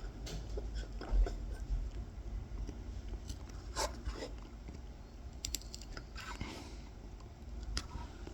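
Kolrosing knife point scoring a tiny circle into wood: short, scattered crunchy scratches and clicks as the blade cuts the fibres.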